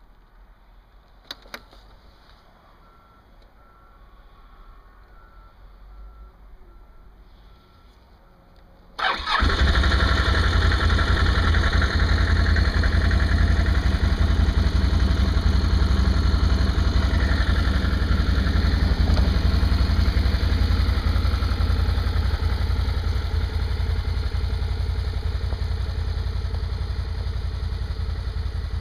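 Can-Am Renegade 1000 ATV's V-twin engine, on its stock exhaust, starting about nine seconds in after a quiet stretch with a couple of clicks, then running steadily.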